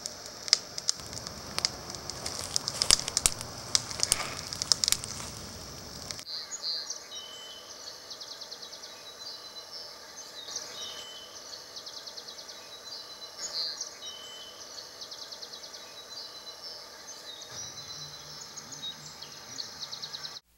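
Outdoor nature ambience: irregular crackles over a steady hiss for the first six seconds, then an abrupt change to birds chirping and trilling over a quiet background.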